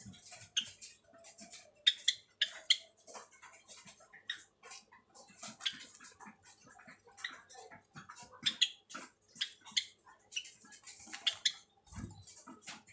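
White Java sparrows giving many short, sharp chirping calls in an irregular scatter.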